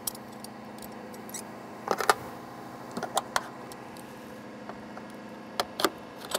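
Cleco pliers and a spring-loaded Cleco sheet-metal fastener clicking and clinking as the fastener is fitted into a freshly drilled rivet hole, in small clusters of sharp clicks about two, three and five and a half seconds in.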